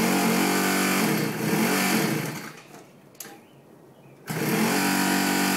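X-1 pocket bike's electric starter cranking the engine with a steady whirring drone, wavering and dying away about 2.5 s in; a click follows, and the cranking starts again about 4.3 s in. The engine never catches and runs on its own, and the sound stops as soon as the starter is released.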